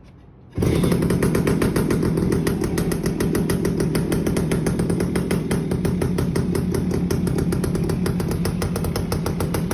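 Suzuki AX100's two-stroke single-cylinder engine catches about half a second in and then runs steadily with a fast, even beat through its aftermarket exhaust. This is a cold start on the choke.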